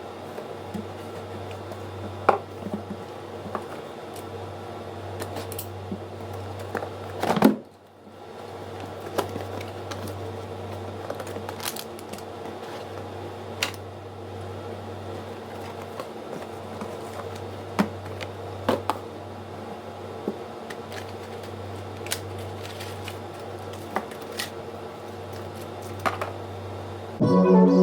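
Scattered light clicks and taps of computer parts being handled and fitted together, over a steady low hum.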